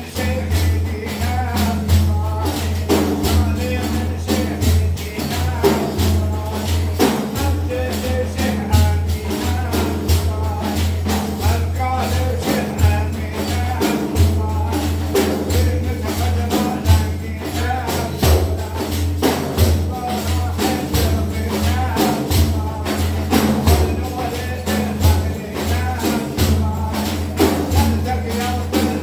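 Several hand-held frame drums beaten together in a steady rhythm, with men's voices chanting a devotional hymn over them.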